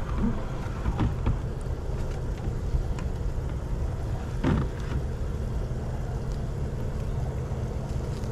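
Water bubbling and splashing in a cooler bait tank from a pump-driven venturi aerator, over a low steady rumble, with a couple of knocks about one and four and a half seconds in.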